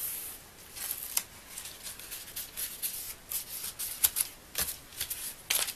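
Paper and a backing liner rustling and crackling as they are pressed down and peeled from a sticky adhesive sheet on a card, in irregular short crackles, the sharpest about four seconds in and near the end.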